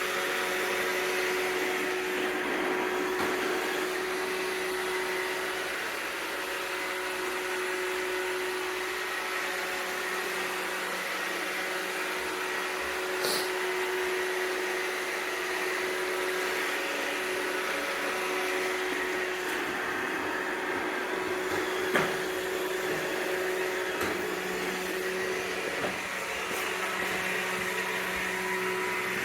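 iRobot Roomba 694 robot vacuum running: a steady motor and brush hum with a whine, broken by a sharp knock about three-quarters of the way through.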